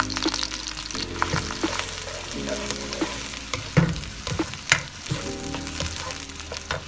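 Onions frying in hot cooking oil in a kadai, sizzling steadily, with a spatula scraping and knocking against the pan now and then as they are stirred to soften.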